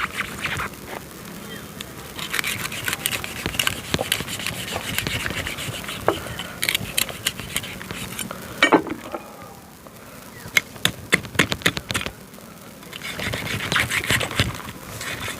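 Cutting through a yellowfin tuna's gills: scratchy scraping and snipping of a blade in the fish, with a run of quick sharp clicks about ten seconds in.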